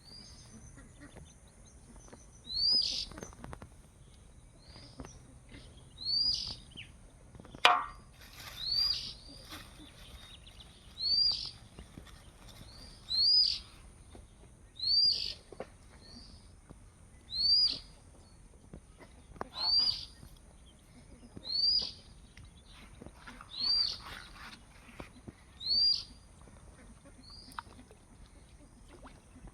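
A bird repeating one short, high call about every two seconds, a dozen times over.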